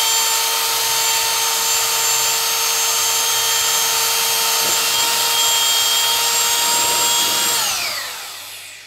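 Bosch rotary hammer running steadily at full speed with a wood drill bit boring into a board, a high motor whine over the hiss of the cutting. About 7.5 seconds in it is switched off and the whine falls in pitch as the motor spins down.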